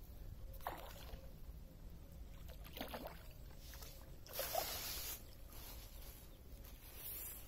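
Hooked tilapia splashing at the water's surface as it is reeled in and lifted out: a few short, faint splashes, the strongest about four and a half seconds in.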